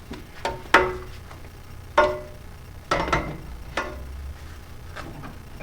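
Metal tools clinking and knocking against metal parts while an O2 sensor is swapped, about six sharp metallic clinks with short ringing tones, the loudest at about three-quarters of a second and two seconds in.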